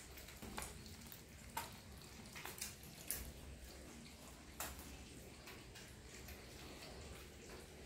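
Kittens lapping milk and eating from plastic plates, heard as faint, irregular wet clicks, about half a dozen of them.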